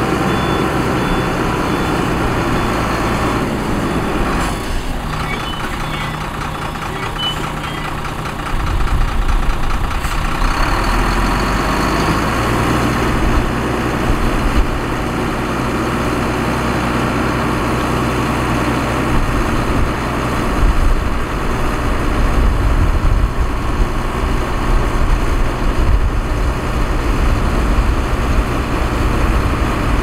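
Heavy diesel engines of dump trucks and a bulldozer running, with a reversing alarm beeping in the first few seconds. The engine sound grows louder and deeper about nine seconds in.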